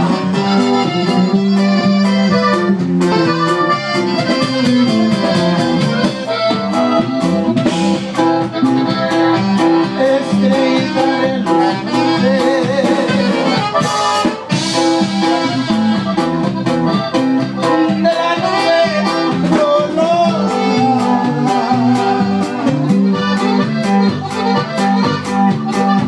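Live norteño band playing: an accordion melody over electric bass and a drum kit keeping a steady beat.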